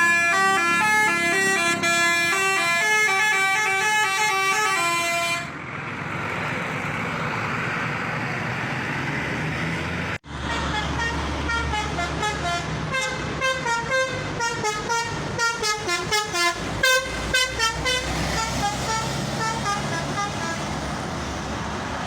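Transjakarta bus 'telolet' multi-tone horn playing a quick stepping tune for about five seconds, then the bus's engine and road noise. After a sudden break, a longer run of fast, pulsing horn notes.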